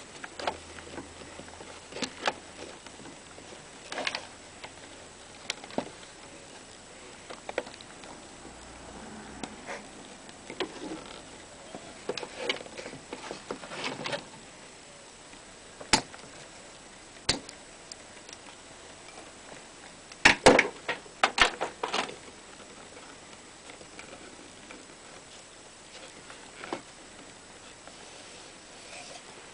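Clear plastic tubes being handled and pushed into the drilled holes of a plywood box: scattered light clicks and knocks, with a quick run of louder clacks about two-thirds of the way through.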